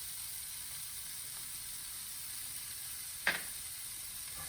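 Chopped onion and garlic sizzling gently in a frying pan over turned-down heat, a steady soft hiss. About three seconds in, one sharp knock, likely a utensil against the pan.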